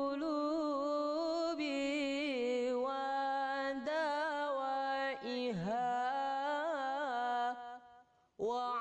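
Background music: a single voice singing slow, drawn-out notes that waver and glide between pitches. The singing breaks off briefly near the end.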